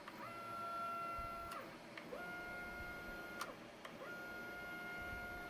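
Stepper motors of an LR3 Lowrider CNC whining as the gantry is jogged along the X axis three times, each move rising in pitch as it speeds up, holding a steady tone, then falling as it stops, with short pauses between moves.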